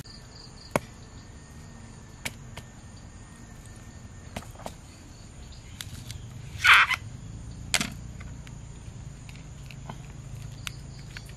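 Machete working a roasted bamboo tube of khao lam open: a handful of scattered sharp knocks and cracks of blade on bamboo, the loudest and longest crack a little past the middle as the bamboo splits.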